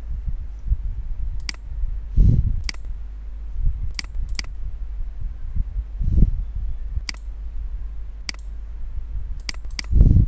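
Computer mouse clicking: about nine short, sharp clicks, some in quick pairs, over a steady low hum. Dull low thumps come about two, six and ten seconds in, the last the loudest.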